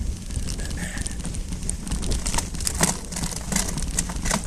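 Mountain bike rolling fast over a dirt singletrack: a steady rumble of tyres and wind on the mounted camera's microphone, with frequent clicks and rattles from gravel and the bike.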